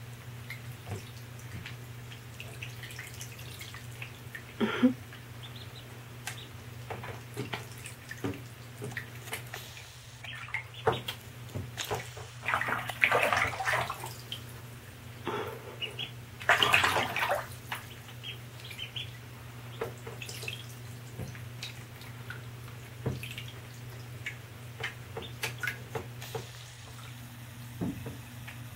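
Mallard ducklings paddling and dabbling in shallow bathtub water: small splashes and drip-like plinks throughout, with two louder stretches of splashing about 13 and 17 seconds in. A steady low hum runs underneath.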